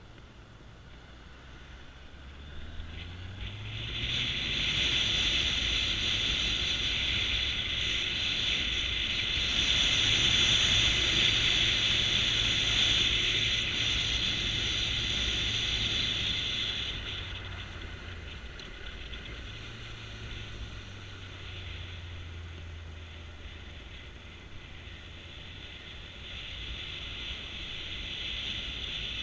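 Motorcycle engine picking up speed with a rising pitch, then running at road speed under a loud high hiss of wind and riding noise. The hiss eases about seventeen seconds in, and the engine picks up again soon after.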